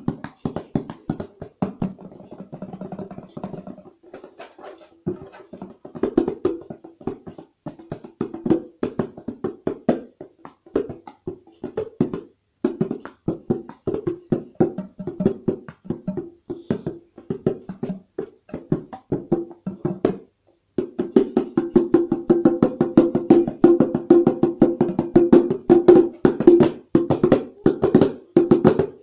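Afro hand percussion struck with the hands in fast, dense runs of strokes that ring on a steady note. The playing stops briefly about twenty seconds in, then comes back louder and denser.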